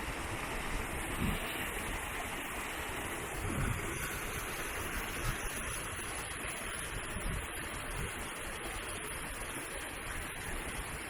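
Steady rush of flowing water, with wind buffeting the microphone in low gusts a few times.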